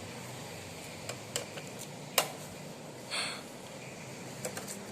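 Quiet room tone with a few light clicks and taps, one sharper click about two seconds in, and a short rustle a second later.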